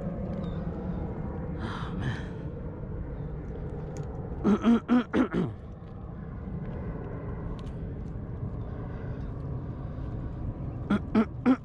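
A man's voice in short breathy bursts, about five in quick succession about halfway through and three more near the end, each run dropping in pitch at its close, over a steady low rumble.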